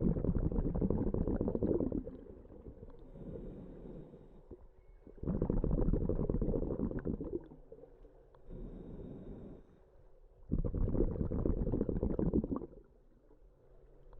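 A diver breathing underwater: three bubbling exhalations of about two seconds each, roughly five seconds apart, with quieter hissing inhalations between them.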